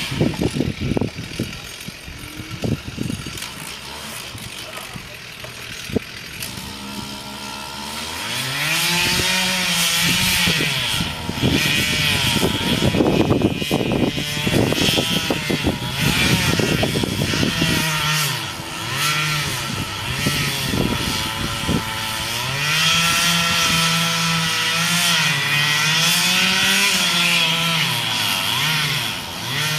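Two-stroke chainsaw engine running hard, its pitch rising and dipping repeatedly as it is revved and loaded in the cut. This starts about a quarter of the way in, after a rougher, noisier stretch with scattered knocks.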